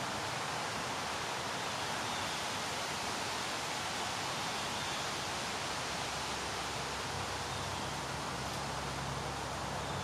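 Steady, even outdoor background hiss in woodland, with no distinct snaps, calls or footsteps. A faint low hum comes in near the end.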